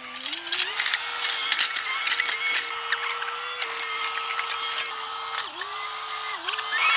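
Small electric motor whining, rising in pitch as it spins up and dipping briefly twice near the end as if loaded, with rapid mechanical clicking like gears or a ratchet.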